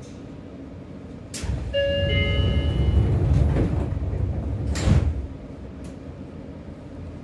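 Seibu 6000 series commuter train's sliding passenger doors closing: a click, then a low rumbling rush as the panels slide, with a few brief steady tones, ending in a thud about five seconds in as they shut.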